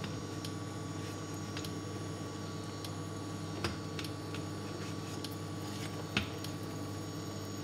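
Steady kitchen hum, with a couple of light taps as sticks of bread are laid into an oiled nonstick frying pan, one about three and a half seconds in and one about six seconds in.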